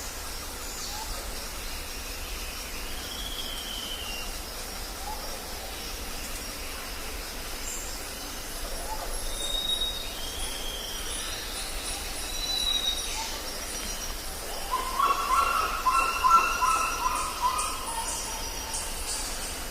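Jungle ambience: a steady background hiss with scattered short bird calls and whistles, and a louder burst of rapid chattering bird calls about three-quarters of the way through. Faint high insect-like ticking joins near the end.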